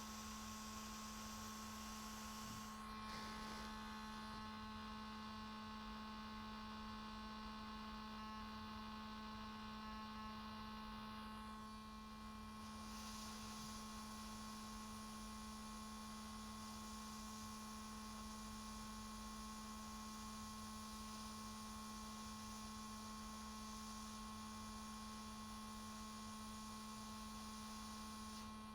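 Steady, faint electrical hum from bench equipment, with a high hiss that fades about three seconds in and returns about thirteen seconds in.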